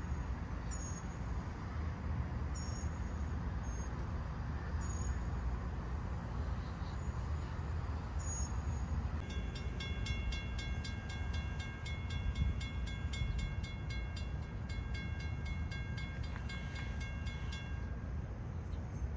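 Railroad grade-crossing warning bell ringing in an even run of strikes, several a second, from about halfway through until shortly before the end: the crossing signals are warning of an approaching train. A steady low rumble runs underneath.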